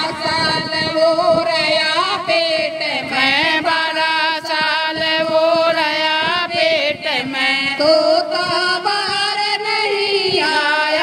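A group of women singing a devotional song together, one voice leading on a microphone, with hand clapping keeping time.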